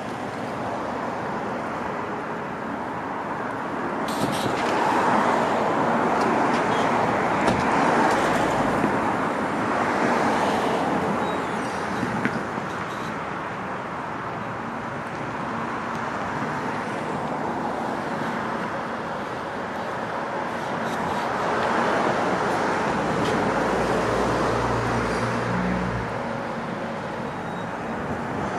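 Road traffic: vehicles passing, their tyre and engine noise swelling and fading twice.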